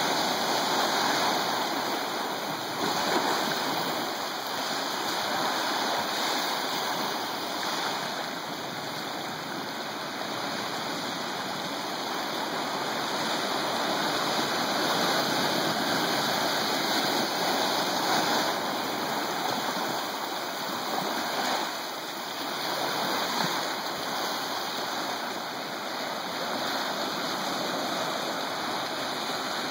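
Ocean surf washing against a rocky shore, a constant rush of water that rises and falls slowly in loudness.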